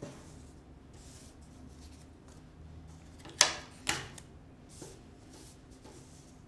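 Hands handling paper cut-outs and pipe cleaners on a tabletop: faint rustling, with two sharp knocks about three and a half seconds in, close together, and a softer one a second later.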